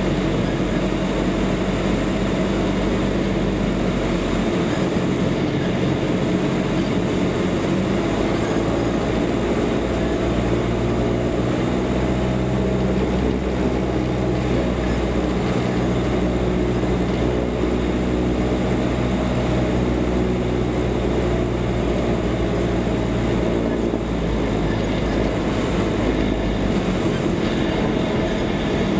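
Steady drone of a Cessna 172's piston engine and propeller heard from inside the cabin, over airflow noise. The engine note shifts a few times.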